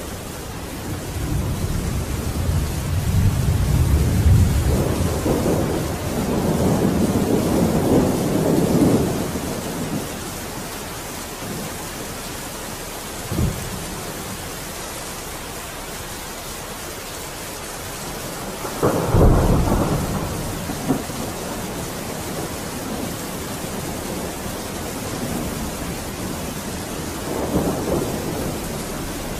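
Steady rain with rolls of thunder. The heaviest rumbles come in the first ten seconds and again about nineteen seconds in.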